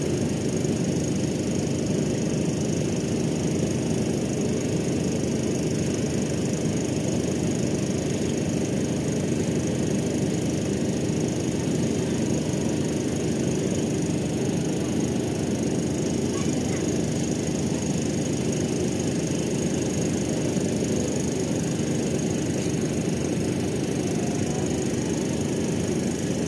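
A ship's engine running with a steady low drone and a faint constant high whine, holding an even level with no change.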